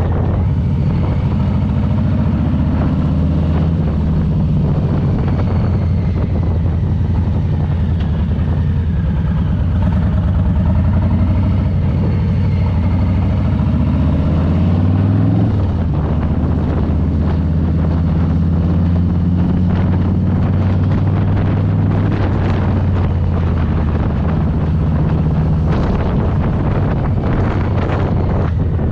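Harley-Davidson Low Rider S V-twin motorcycle running under way, its exhaust note climbing as it accelerates about halfway through, then dropping suddenly at a gear change before settling into a steady cruise. Wind buffets the microphone throughout.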